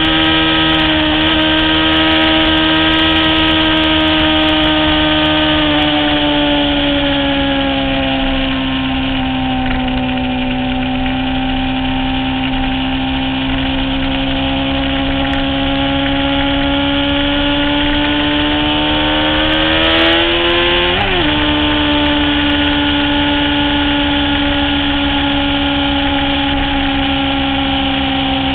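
Honda CBR600F4i sportbike's inline-four engine running hard at high revs, its pitch sagging and climbing with the throttle through the corners, with a sudden dip in pitch about two-thirds through before it settles lower, as at a gear change. Wind rush on the bike-mounted microphone runs beneath it.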